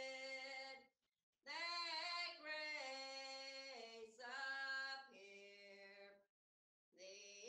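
A lone voice singing slowly and unaccompanied, with long held notes in short phrases and two brief pauses between them.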